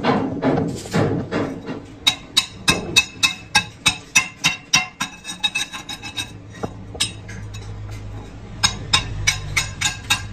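Hand hammer striking a flat steel strip laid on a small iron block, in quick ringing metallic blows about three a second. The blows pause briefly a little past the middle and then resume. The first two seconds are background music.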